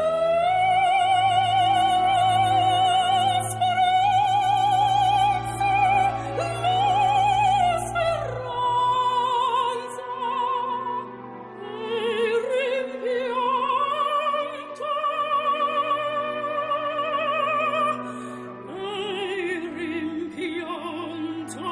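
Operatic singing: a high voice holds long notes with strong vibrato, gliding between pitches, over a sustained low accompaniment.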